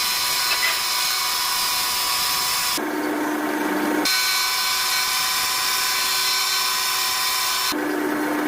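Power tool running with a steady high whine and hiss. Twice, about three seconds in and again near the end, it switches abruptly to a lower hum for about a second before the high whine returns.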